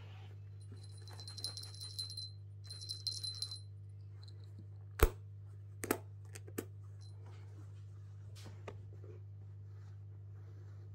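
Small jingle bell on a felt sheep in a fabric quiet book jingling in two short shakes, followed by a few sharp taps and knocks from hands on the book. A steady low hum runs underneath.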